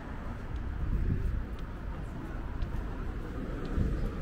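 City street ambience beside a multi-lane road: a steady traffic hum with low rumbles swelling about a second in and again near the end.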